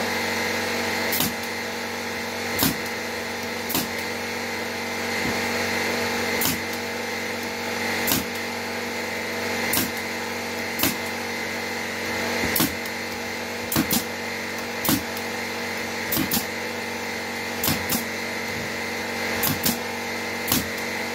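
Pneumatic brad nailer firing nails into half-inch wooden boards: about eighteen sharp shots at irregular intervals, some in quick pairs. A steady mechanical hum runs underneath.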